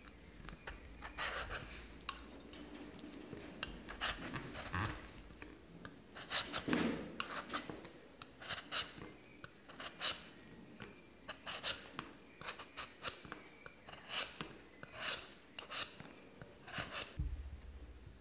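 Metal Y-shaped vegetable peeler scraping the skin off a raw potato in short repeated strokes, roughly one a second.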